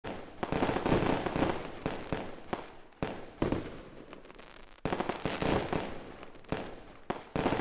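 Fireworks: a dense run of crackles and pops with louder bangs about every second.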